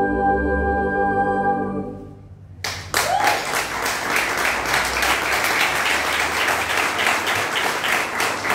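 The choir and electronic keyboards hold a final chord, which fades out about two seconds in. After a short pause, applause breaks out and keeps going.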